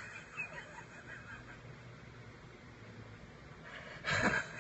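A person's loud, high-pitched burst of laughter, about four seconds in; before it there is only faint sound.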